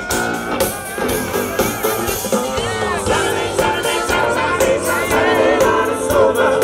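Live band playing loud music with singing over a steady beat.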